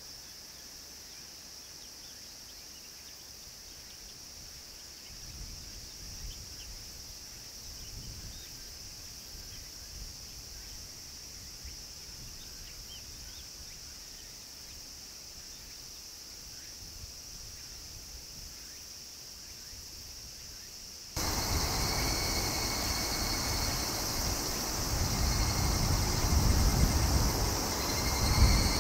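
Cicadas droning in a steady high buzz over a faint low rumble. About two-thirds of the way through, the sound jumps louder at once: the insect buzz is stronger and a low rumble swells toward the end.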